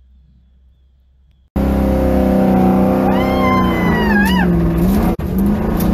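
After a quiet start, a car engine cuts in suddenly about a second and a half in, running hard with its pitch wavering. A high squeal rides over it, rising and then dropping away, around four seconds in.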